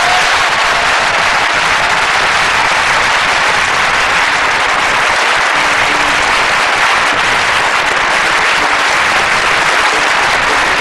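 Concert audience applauding in a steady, dense wash of clapping as the aria ends.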